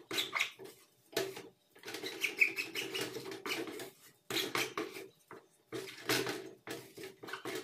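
A spoon beating thick, set pumpkin sweet in a pot in irregular strokes, scraping and squeaking over the pot's ridged bottom. The cook says the ridges there make this noise.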